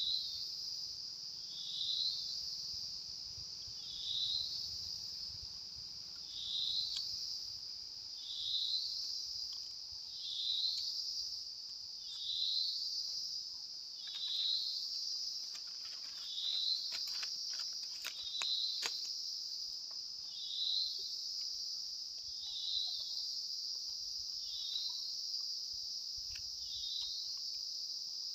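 Forest insects shrilling steadily and high, with a short rising chirp repeating about every two seconds. A few faint clicks come about halfway through.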